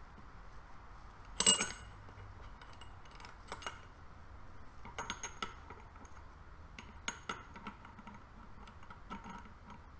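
Steel gearbox parts (gears, spacers and a bearing) clicking and clinking against each other and the gearbox casing as they are fitted by hand, with a sharp clink about a second and a half in and lighter clicks scattered after it.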